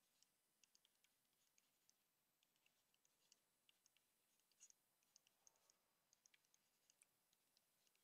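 Near silence broken by faint, irregular little clicks and taps of a stylus writing on a tablet or pen display.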